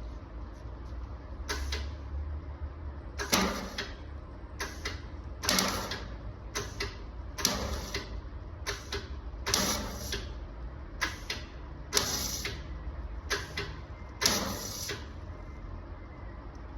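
Welder laying a series of short tack welds on thin car-body sheet metal. There are about a dozen brief crackling bursts, each a fraction of a second long, spaced roughly a second apart.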